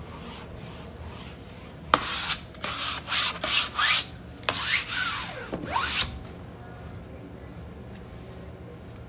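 A hand wiping a cloth pad firmly across shiny vinyl wall covering: about half a dozen quick rubbing strokes, a few with a short squeak, between about two and six seconds in.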